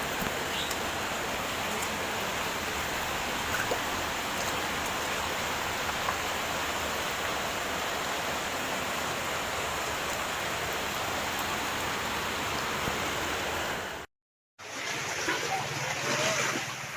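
Steady rush of heavy rain and flowing floodwater. About fourteen seconds in it cuts out for half a second, then gives way to quieter water noise with faint voices.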